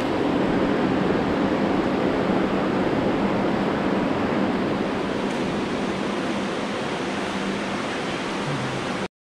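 Steady rushing noise, even and without any speech, that cuts off suddenly to silence about nine seconds in.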